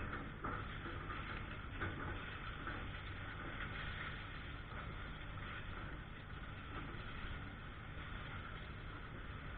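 A steady low engine hum under a wash of hiss, with a couple of faint knocks in the first two seconds.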